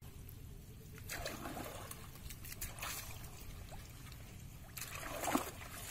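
Water trickling and splashing off a fishing net as it is hauled up by hand from shallow water, coming in three bursts: about a second in, near three seconds, and around five seconds.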